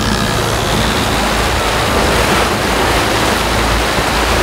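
Water rushing and churning in the wake of a boat under way, with wind buffeting the microphone over a low steady rumble.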